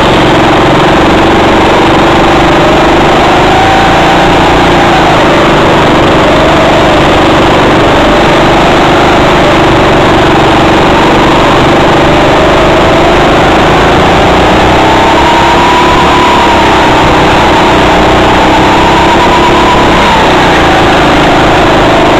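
Go-kart engine running loud right at the microphone, its pitch wavering with the throttle and rising twice in the last third as the kart drives around the track.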